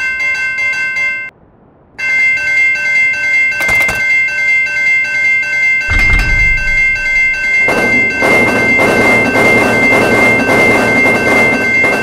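Railroad crossing warning bells ringing a fast, steady ding. They break off for a moment about a second in, then start again. A low thump comes near six seconds, and from about eight seconds a loud rushing rattle joins the bells.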